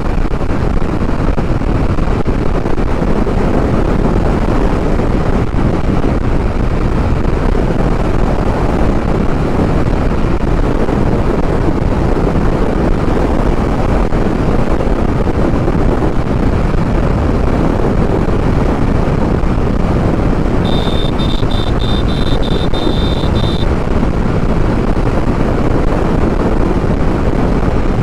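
Wind buffeting the microphone over the steady running of a Hero Honda Karizma motorcycle's single-cylinder engine, cruising at an even speed on the highway. About three-quarters of the way through, a high beeping repeats rapidly, about eight times over roughly three seconds.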